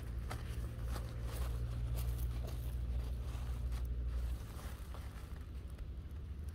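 Faint rustling of peanut plant leaves and crackling of dry soil as a hand grips the stems and pulls the plant up, over a steady low rumble that drops off about four seconds in.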